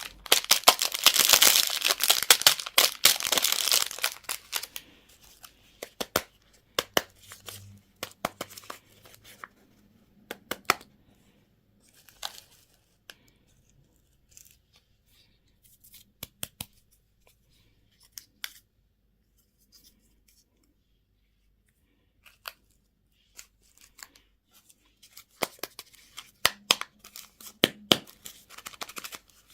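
Candy or toy packaging being torn open, a loud tearing and crinkling rush for the first few seconds, followed by scattered clicks and crackling rustles of the wrapper being handled, with a quiet stretch past the middle.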